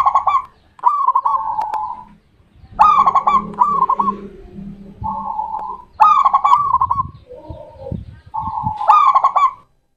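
Zebra dove (perkutut) cooing its song: about seven short, rolling cooing phrases with a short pause between them, one lower coo coming before the last, and the song stopping shortly before the end.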